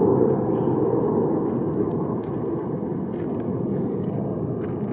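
Distant jet noise from a pair of Eurofighter Typhoon fighters, each with twin EJ200 turbofans, flying overhead: a steady rumble that slowly fades.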